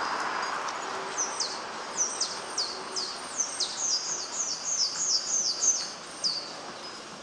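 A bird calling a quick series of high, downward-slurred notes, about three a second, for about five seconds, over a steady background rush.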